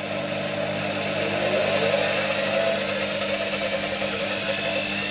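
Record Power DML250 wood lathe running empty, belt-driven by a retrofitted washing-machine motor through a speed controller. Its whine climbs in pitch over the first couple of seconds as the speed is turned up toward maximum, then holds steady.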